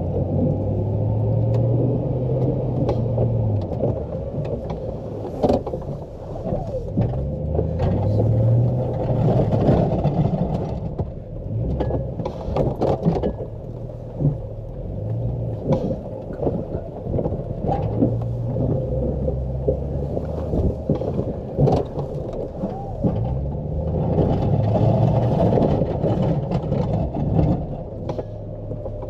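Pickup truck engine working a snow plow, the pitch rising and falling again and again as it pushes snow, with scattered knocks and clunks.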